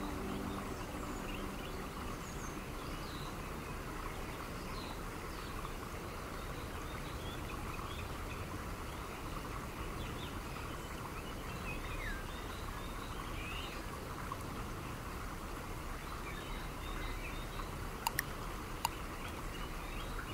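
Outdoor nature ambience: a steady background hiss with faint, scattered bird chirps, and two sharp clicks near the end.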